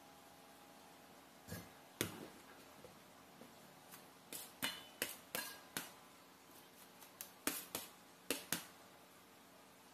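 Stainless steel mesh strainer knocking and scraping against a stainless steel bowl as wet chopped jackfruit is tapped out of it: a string of sharp metallic clicks and taps starting about a second and a half in and stopping near the end, over a faint steady hum.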